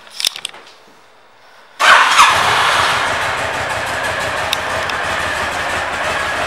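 Honda VTX1300's V-twin engine starting about two seconds in, with a loud burst as it catches, then settling into a steady idle. A few light clicks come just before it starts.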